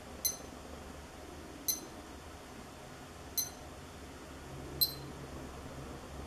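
Casio G-Shock MRG-1 digital watch giving four short electronic beeps, about a second and a half apart, one for each button press as it steps through its display modes. The last beep is the loudest.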